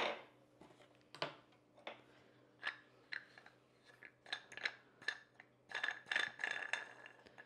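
Rubber thickness rings being twisted and slid off a stainless steel rolling pin: scattered short scrapes and clicks, with a squeaky rub of rubber on metal about six seconds in.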